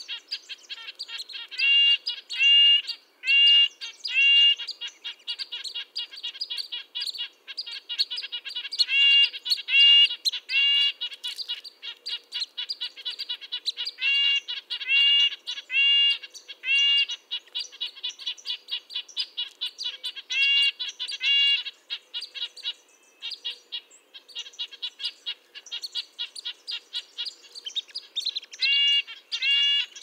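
Red-breasted nuthatch calling: a long series of short, high, nasal tin-trumpet notes, louder single calls mixed with quick runs of softer notes, with a brief lull near the end.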